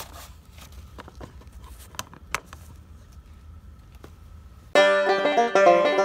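A few light clicks and knocks over a low hum, then about three-quarters of the way in, banjo music with a bluegrass feel starts abruptly and becomes the loudest sound.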